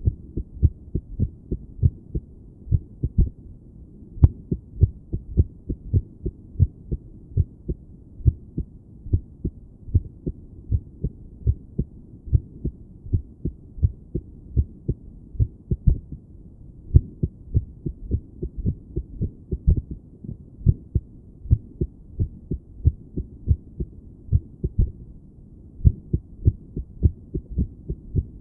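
A woman's heartbeat heard through a stethoscope pressed to the chest: low, muffled thuds in an uneven, irregular rhythm, her heart skipping and racing rather than keeping a steady beat.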